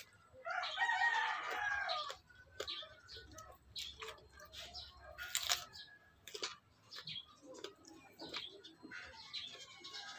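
A rooster crows once, starting about half a second in and lasting about a second and a half, over crunching bites and chewing of a raw green chili, with one sharp crunch about halfway through.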